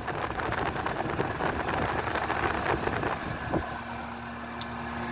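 Old Amana central air conditioner's outdoor condensing unit running: a steady hum from its Bristol compressor under the rush of the condenser fan. Wind buffets the microphone for the first few seconds, and there is a short knock about three and a half seconds in.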